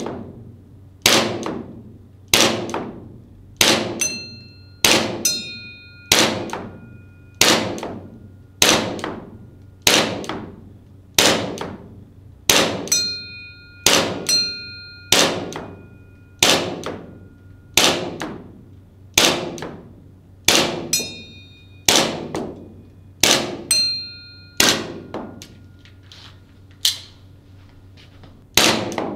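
ARMY TTI Combat Master gas blowback airsoft pistol fired in a slow, steady string of about two dozen shots, roughly one every 1.2 seconds. Many shots are followed by a metallic ding as BBs strike a steel target about 25 m away.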